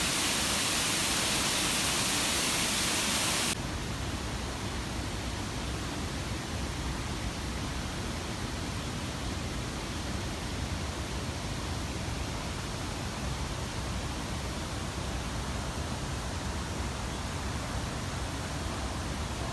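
Steady rushing of an artificial waterfall, loud and hissing at first, then dropping suddenly about three and a half seconds in to a quieter, deeper rush.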